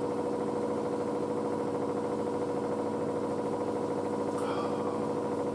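Front-loading washing machine in its spin cycle, drum spinning at speed with a steady motor whine and hum.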